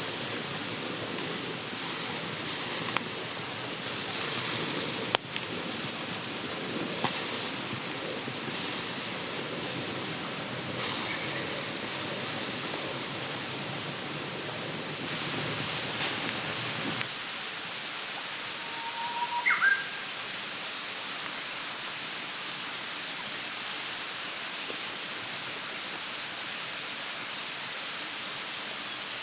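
Campfire crackling, with scattered sharp pops over a steady rushing hiss. After about 17 seconds the crackles and the lower part of the sound drop away, leaving only the even hiss, with a brief short whistle-like rising tone near 20 seconds.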